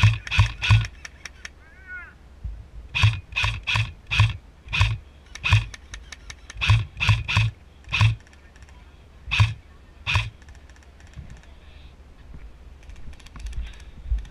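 Airsoft rifle firing single shots in quick runs, each a sharp snap with a low thump, about twenty shots over the first ten seconds, followed by faint rapid ticking.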